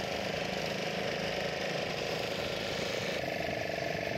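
Outboard motor of a small fishing boat running steadily on the water, its note shifting slightly about three seconds in.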